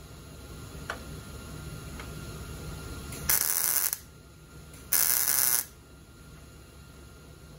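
Two short tack welds on sheet metal, each a burst of welding arc lasting well under a second, about a second and a half apart. A faint click comes about a second in.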